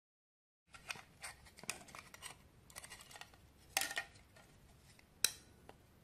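Faint scraping and small clicks as a screwdriver works at the screws of a plastic flashlight's LED board, with sharper clicks near four seconds in and a little after five seconds in.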